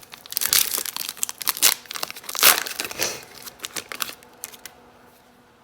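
Plastic trading-card pack wrapper crinkling and crumpling in hands, a busy run of crackles that dies away about four and a half seconds in.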